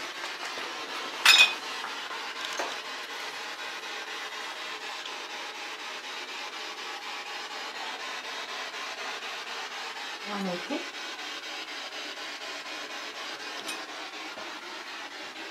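Steady background hiss with handling noise from a hand-held camera: one sharp click about a second in, a brief falling tone about two-thirds of the way through, and a fainter click near the end.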